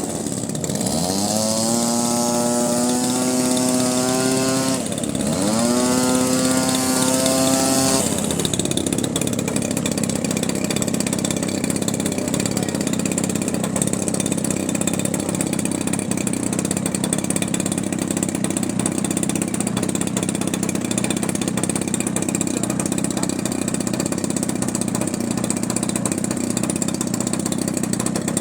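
A small motor runs with a steady high tone that twice drops sharply in pitch and climbs back. About eight seconds in the tone gives way to a steady, even hiss.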